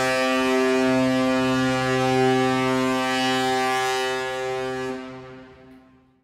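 Ship's horn sounding one long, steady blast that fades away over the last second or so.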